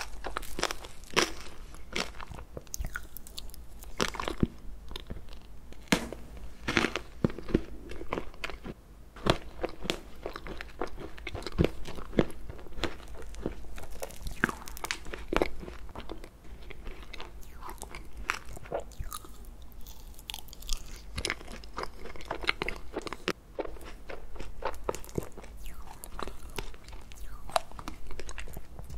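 A metal fork scraping and breaking into a frozen Baskin-Robbins ice cream cake, close-miked, with chewing mixed in. The crunches and crackles are irregular and come thick and fast, some of them sharp.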